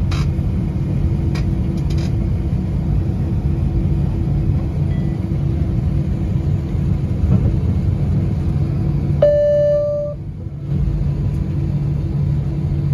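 Steady low cabin rumble and hum of an Airbus A320 taxiing, heard inside the cabin. About nine seconds in, a single flat beep lasts just under a second.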